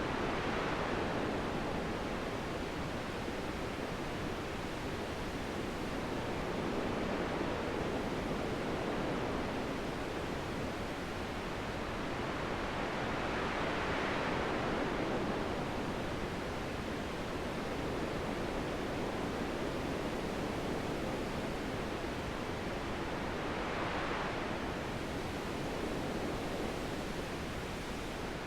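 Wind blowing as a steady hiss that swells and eases in slow gusts, every ten seconds or so.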